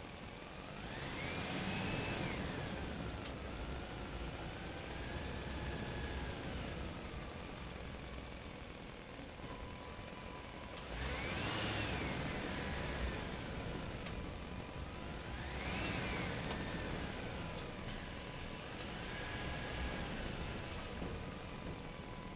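Small electric motors of a remote-control toy crane whining as it moves. The pitch rises and falls with each run, several times over.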